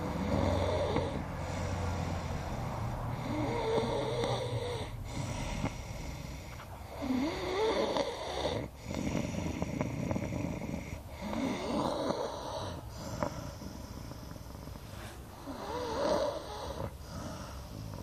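A man snoring, with about five loud snores roughly four seconds apart.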